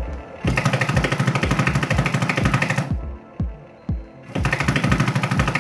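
Breaker (jackhammer) attachment of a Huina 1594 RC excavator hammering with a rapid rattle in two bursts, the first about two and a half seconds long, the second starting near the end. Background music with a steady kick-drum beat plays underneath.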